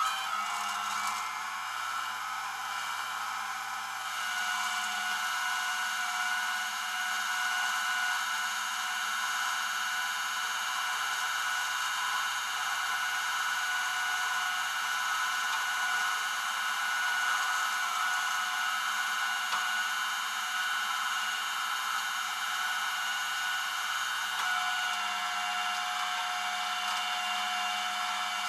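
Rollback tow truck's hydraulic winch running under load, a steady high whine with several tones, as it drags a pickup up the bed. It starts abruptly as the winch is engaged.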